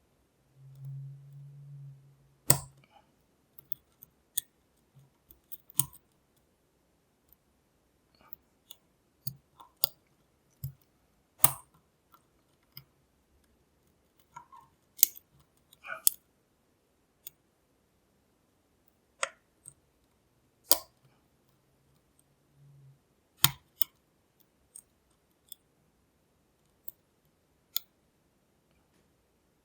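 Lock picking a Lockwood V7 padlock: scattered, irregular clicks and light taps of the pick and tension tool working the pins in the keyway, with a few sharper clicks among them. A brief low hum sounds about a second in and again near the end.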